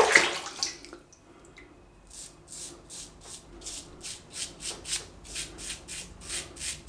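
Blackland Osprey adjustable safety razor, set to 9, its most aggressive blade gap, with a Gillette Rubie blade, scraping through lathered stubble on the neck. It makes short, rasping strokes, about three a second, from about two seconds in. A brief louder noise comes at the very start.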